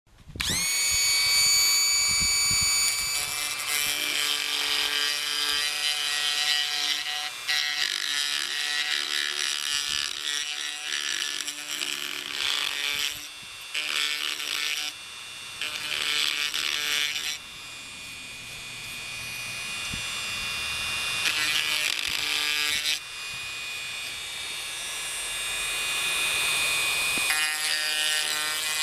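Dremel rotary tool spinning up with a rising whine about half a second in. It then grinds and shapes cured Flex-Tec HV epoxy filler in a wooden joint, its high whine and grinding noise dipping and shifting several times as the bit cuts into the material.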